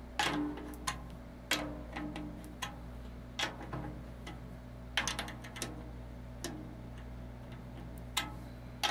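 Light fingertip taps on the top head of a Mapex Armory Exterminator 14x6.5 birch/walnut snare drum, each a short tap with a brief pitched ring, coming irregularly about a dozen times. The head is being checked lug by lug while it is tuned.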